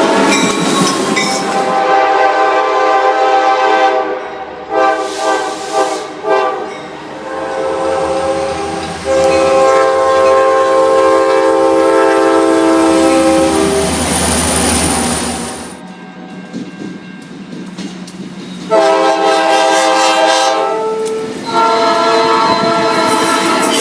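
Locomotive multi-chime air horn sounded over and over for a horn show: long chord blasts broken up by several short toots, with gaps between. A low engine rumble runs under the longest blast in the middle.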